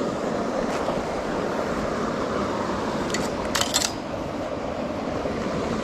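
Steady rush of a fast-flowing trout stream, with a few sharp clicks about three and a half seconds in.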